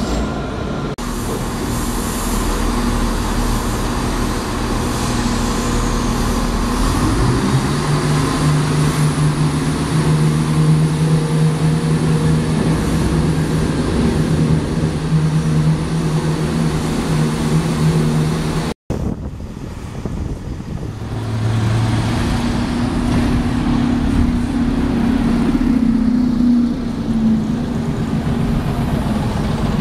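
Street traffic noise, then a diesel multiple-unit train's engine rising in pitch about seven seconds in and settling to a steady drone. After a sudden cut, a single-deck bus's engine runs close by as the bus moves slowly past, its note falling away near the end.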